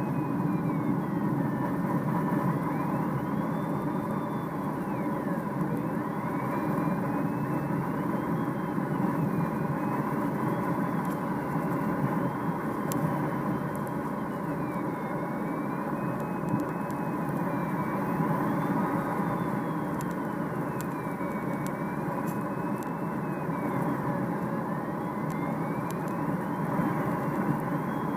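Steady rush of air and drone of the tow plane's engine heard inside a Duo Discus glider's cockpit on aerotow, with a thin electronic variometer tone wavering slowly up and down in pitch.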